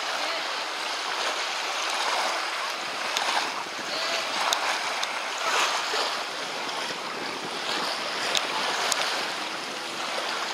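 Small sea waves washing on a sandy shore, a steady hiss that swells and eases, with wind on the microphone and a few faint ticks.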